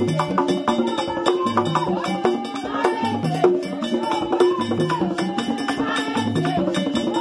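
Haitian chanpwèl group playing a banda rhythm: pegged hand drums are struck with hands and sticks in fast clicking strokes, over a low stepped figure of notes that repeats about every one and a half seconds, blown on a white PVC vaksin tube.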